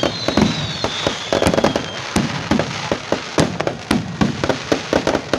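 Fireworks exploding in rapid, irregular succession: many sharp bangs and pops. A high whistle glides downward over the first two seconds.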